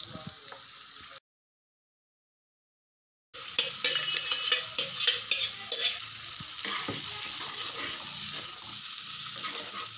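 Ground onion-tomato paste frying in hot oil in a nonstick kadai, sizzling steadily as a spoon stirs and scrapes it into the sautéed onions. The sound drops out completely for about two seconds near the start, then the sizzle comes back loud.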